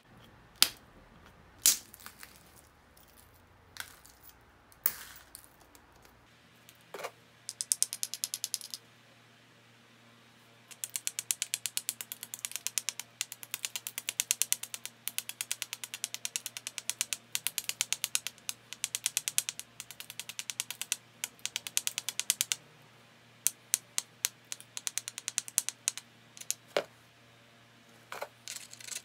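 Knapping a small stone biface: sharp single snaps as an antler tine presses flakes off the edge, and a long stretch of rapid rasping strokes, many a second, as the edge is abraded with a stone to prepare the platforms. Single snaps return near the end.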